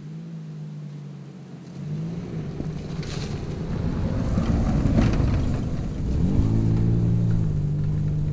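1998 Dodge Avenger driving past on a dirt track. The engine grows louder as the car approaches and is loudest, along with tyre and dirt noise, about five seconds in. Just after, the engine revs up again as the car slides away into a corner.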